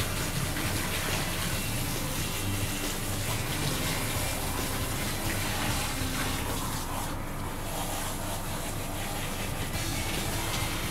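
Handheld shower head spraying water onto a wet standard poodle's coat: a steady rush of running water.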